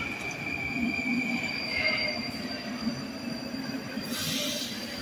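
Metro train moving slowly along the platform, its wheels or brakes giving a steady high squeal that fades after about two seconds over a low rumble, with a short hiss near the end.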